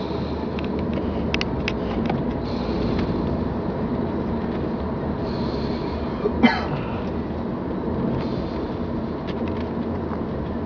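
A man snoring faintly in his sleep under a steady low rumble. One short, sharp cough-like sound stands out about six and a half seconds in.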